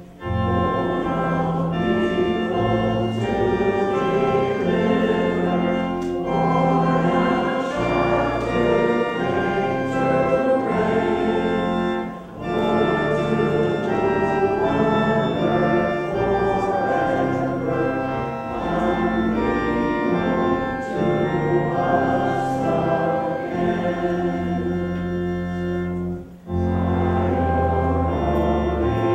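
Organ playing slow, sustained chords over held bass notes, with two brief breaks between phrases, about twelve seconds in and again near the end.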